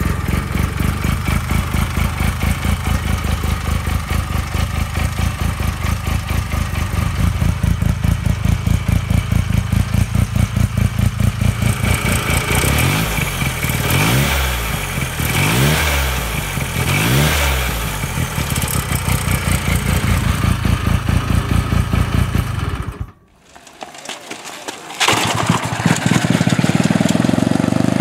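Sachs single-rotor Wankel engine of a Hercules motorcycle running close up with a fast, even pulsing beat, revved up and back down a few times about halfway through. It cuts off a little over 20 seconds in, and after a short quiet gap a motorcycle engine is heard out on a road.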